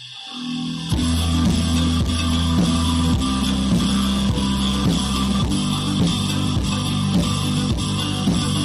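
Instrumental background music, coming back in over the first second after a brief gap and then playing on steadily.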